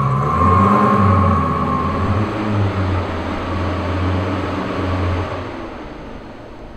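Twin-turbo Lamborghini Gallardo's V10 running at a steady pace, with a high whine that slides down in pitch in the first second or so. The sound dies away over the last two seconds.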